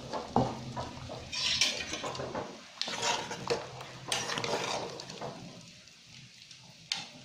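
Metal spoon clinking against a steel cooking pot, several sharp clinks, while potatoes bubble in boiling water.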